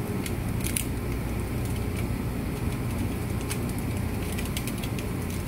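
Steady low background hum, with a few faint crinkles and ticks from aluminium foil and tape being pressed and wrapped around a jar, mostly in the second half.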